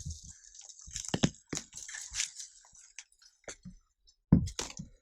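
Irregular crunching and cracking of debris underfoot as someone picks a way through a decaying building, with a heavy thump a little over four seconds in.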